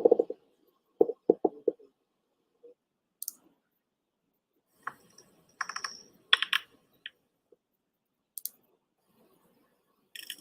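Isolated recordings of freshwater fish sounds from the cichlid Rocio octofasciata and the tetra Astyanax altior: a quick run of four low pulsed grunts about a second in, then scattered sharp clicks, some in short clusters, through the rest.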